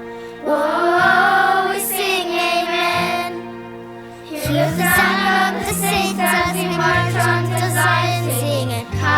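Song music with children singing over a backing track; the sound thins out briefly before the middle, then a fuller accompaniment with a strong bass line comes in.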